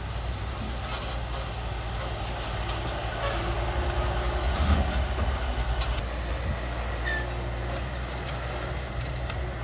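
Diesel engine of heavy earthmoving machinery running steadily, growing louder about halfway through before settling back.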